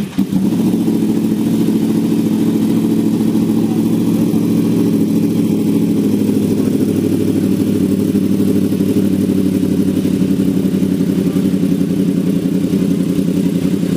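A superbike's inline-four engine starts up and then idles steadily through a sport exhaust, with no revving.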